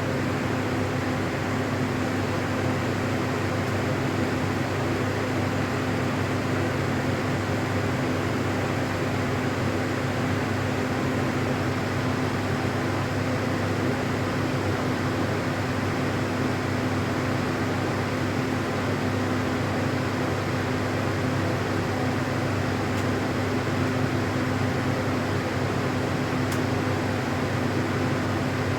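Steady machine hum over an even hiss, with a low drone and a constant tone that do not change throughout.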